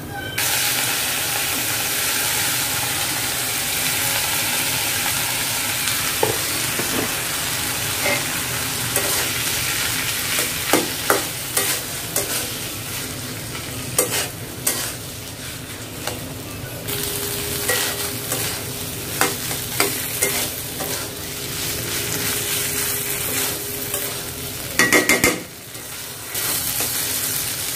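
Boiled chickpeas frying with garlic and dried red chillies in a karahi: a steady sizzle under the scrape and tap of a spatula stirring against the pan, with a few louder spatula knocks near the end.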